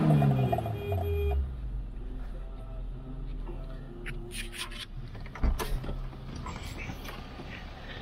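Off-road 4x4 engine revs falling away over the first second or so, then settling to a low steady idle, with scattered clicks and knocks and one sharper knock a little past halfway.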